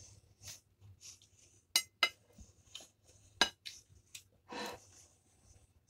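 Nasal breathing and chewing while eating a chicken nugget, with three sharp clinks of a metal fork against a plate: two close together near two seconds in and one at about three and a half seconds.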